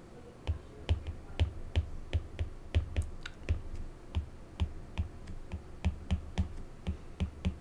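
Stylus tip tapping and clicking on a tablet's glass screen during handwriting: a rapid run of short, sharp clicks, each with a dull low thump, about two to three a second, starting about half a second in.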